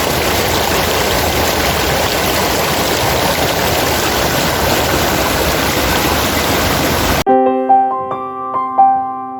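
Steady rush of running water, like a forest stream or small waterfall. About seven seconds in it cuts off abruptly and piano music begins.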